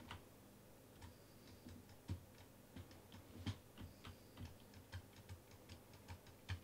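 Faint, irregular clicking of a computer mouse and keyboard, about two or three clicks a second.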